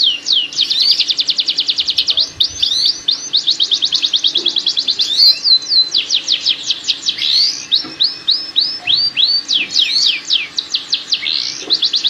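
Domestic canary mating song: fast rolling trills of quick downward-sweeping whistled notes, broken by slower runs of separate notes before fast rolls return near the end. This is a breeding lure meant to bring canaries into mating condition.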